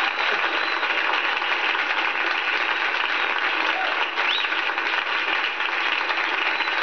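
Live audience applauding steadily.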